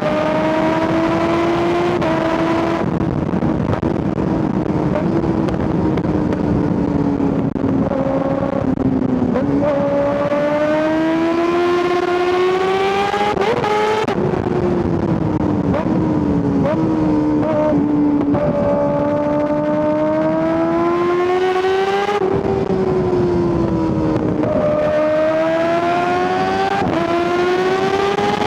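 Kawasaki ZX-6R 636's inline-four engine under way, its pitch climbing steadily in several long pulls that each end in a sudden drop, as the bike accelerates, shifts and rolls off for bends.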